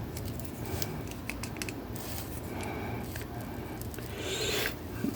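Small plastic clicks and handling rustle from a posable plastic action figure being manipulated, with a brief louder rustle near the end.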